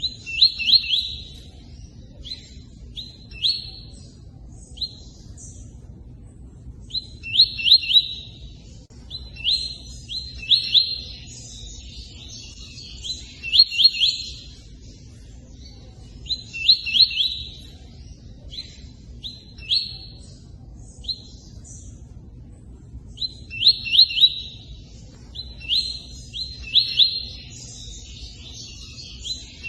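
A tui-tui bird singing its chattering song: short bursts of quick, sharp rising chirps, three or four at a time, repeated every couple of seconds with brief pauses, over steady running water.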